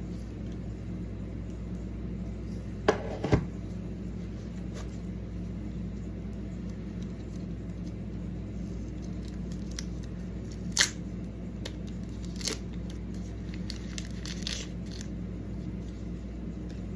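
Packaging and small parts being handled during an unboxing: a few sharp clicks and some brief crinkling over a steady low hum.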